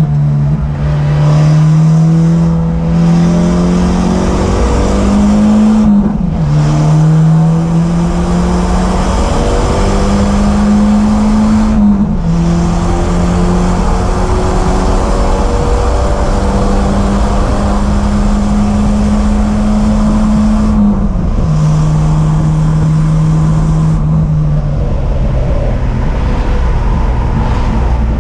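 A 1991 Volvo 240 race car's four-cylinder engine, heard from inside the stripped cabin, pulling hard at full throttle. Its pitch climbs as it revs and drops at each of several gear changes, then falls lower near the end as the car slows for a corner.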